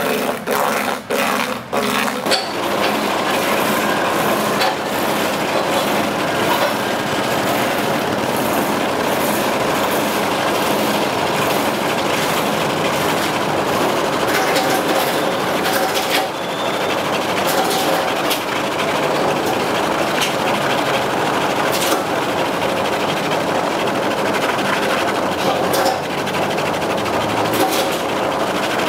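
A coconut-processing machine running with a loud, steady, harsh noise, which starts about two seconds in after a few sharp knocks.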